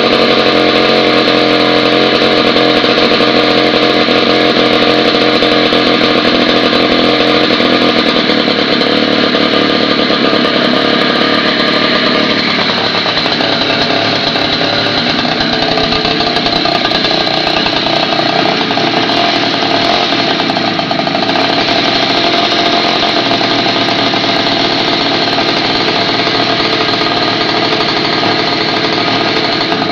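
A 49cc mini chopper engine with a ported cylinder running steadily just after a cold start. Its note changes about twelve seconds in.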